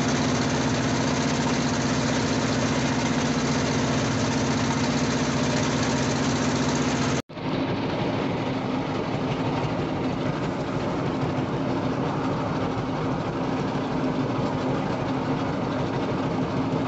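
Fishing boat's engine running steadily with a constant deep hum. A brief break about seven seconds in, after which the engine sounds duller, with less hiss.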